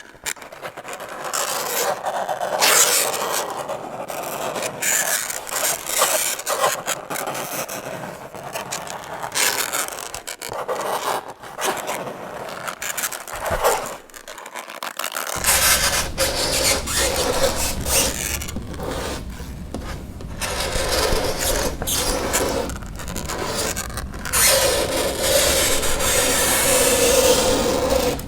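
Fingernails scraping across a chalkboard in repeated rough strokes, with a screech held at one pitch near the start and again near the end. A low hum joins about halfway through.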